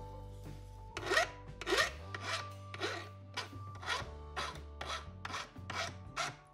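Hand file rasping along the burred edge of a CNC-cut 6061 aluminum plate to deburr it, in about ten even strokes at roughly two a second, starting about a second in.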